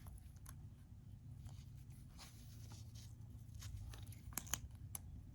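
Faint clicks and light scrapes of small phone parts being handled and pressed into place during an iPhone screen replacement, with a few sharper clicks about four and a half to five seconds in, over a low steady hum.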